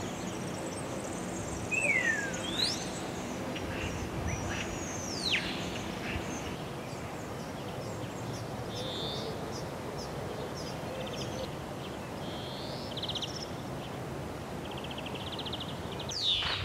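Outdoor ambience: a steady background rush with birds calling over it. There are several clear whistled notes sweeping down or up in the first few seconds, then short buzzy trills every couple of seconds.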